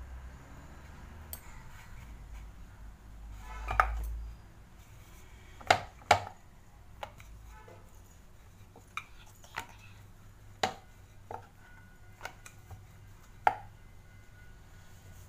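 Rolling pin rolling out stuffed dough on a round wooden board, with sharp knocks of the pin against the board every second or so.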